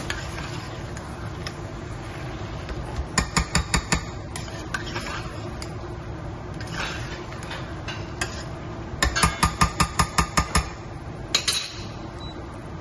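Metal spoon knocking and scraping against a stainless steel saucepan while chicken curry is stirred, in two runs of quick clicks, the second longer, over a steady low background hiss.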